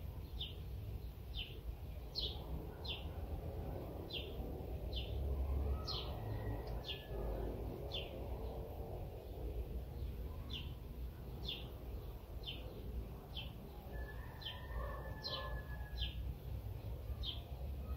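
A small bird chirping over and over: short, high, downward chirps a little more than once a second, over steady low background noise.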